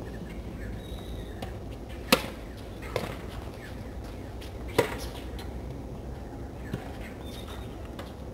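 Sharp knocks of a tennis ball on a hard court and racket, four in all at uneven gaps, the loudest about two seconds in, over a steady low background noise.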